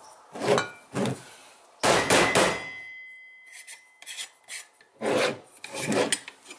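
A new rear main seal being pressed and worked by hand into a 6.7 Cummins rear main seal cover, the seal and cover scraping and rubbing against each other and the bench in five short strokes. The longest, loudest scrape comes about two seconds in and leaves a faint ringing tone that dies away.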